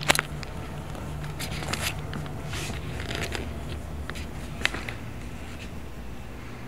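A steady low hum with scattered clicks and short rustles from a handheld camera being moved, with a sharp click right at the start.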